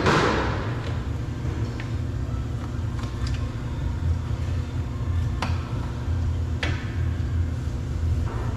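A steady low rumble, like a vehicle engine running, lies under a short scraping rustle at the start and two sharp clicks about five and a half and about seven seconds in, as a car door mirror is handled and worked loose.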